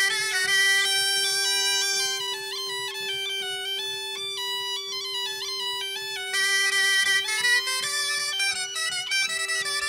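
Bagpipe playing a fast dance tune over a steady, unbroken drone. The melody dips lower and quieter through the middle and comes back higher and brighter about six seconds in.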